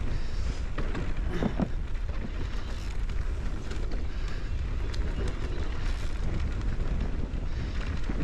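Wind buffeting the microphone while a mountain bike rolls downhill on a dirt trail, its knobby tyres crunching over loose dirt and small rocks, with scattered light clatters from the bike over bumps.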